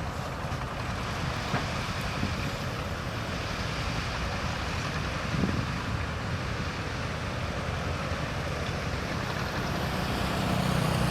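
Bulldozer's diesel engine running steadily while working soil, a continuous low rumble with hiss on top that grows a little louder near the end.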